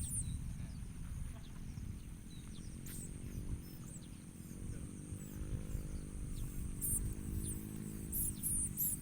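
High, thin, short chirps of ciblek (bar-winged prinia) birds, coming faster and bunched together near the end. Under them are a low rumble and a low droning hum through the middle.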